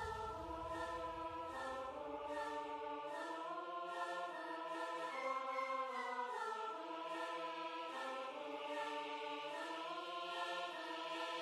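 Background music: slow, sustained choir-like chords that shift pitch every second or so, with a deep bass fading out in the first few seconds.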